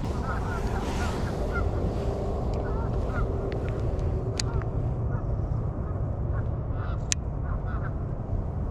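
Waterfowl calling with short, repeated honks over steady wind and water noise, with a couple of sharp clicks.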